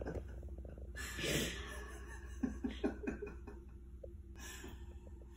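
A man's breathy laughter: a heavy breath out about a second in, a few short chuckles a second or so later, and another breath near the end.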